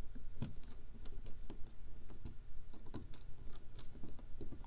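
Small irregular clicks and ticks of a screwdriver turning the screw terminals on a DC motor speed controller board as wires are clamped in, over a low steady hum.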